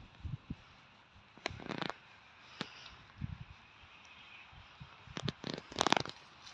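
Scattered rustling and crackling clicks with a few soft thumps, from a person moving about and handling things; the clicks come thicker about five seconds in.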